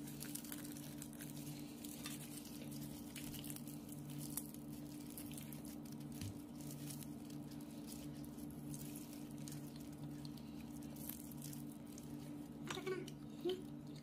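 Crispy fried-chicken crust crackling and tearing faintly as hands pull the pieces apart, over a steady low hum.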